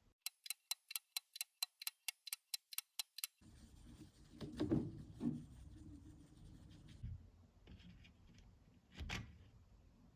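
Faint, rapid run of about fifteen even clicks, roughly four to five a second, from a small mechanism, then quiet handling noise with a few soft knocks.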